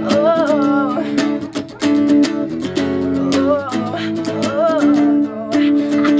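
Ibanez electric guitar strummed in a steady chord rhythm, with a sung vocal line of held notes that waver in pitch over it.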